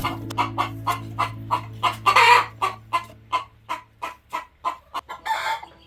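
Chickens clucking in a quick, steady series, about four to five clucks a second, with a louder, longer call about two seconds in and another near the end.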